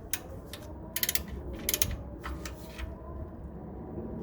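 Socket ratchet clicking in short irregular runs as the oil drain plug is tightened back into the oil pan until it snugs.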